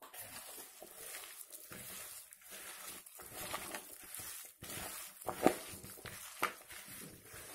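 Hands mixing and kneading a thick, wet batter of ground banana flower and chana dal in a plastic bowl to work the salt through. It makes irregular mashing and rustling strokes, with one louder stroke a little past the middle.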